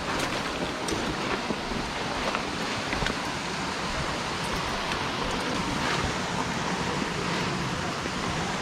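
Steady rush of flowing creek water, with a few faint clicks over it.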